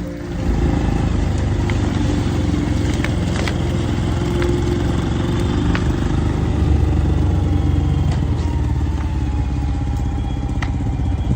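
Steady low rumble of a running vehicle engine with road and wind noise, and a few light clicks scattered through it.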